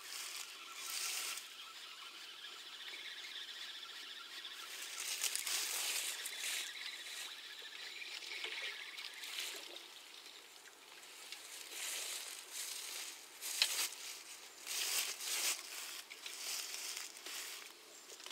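Faint, irregular rustling and scraping of fishing tackle being handled, coming in uneven swells with a few short sharp knocks in the second half.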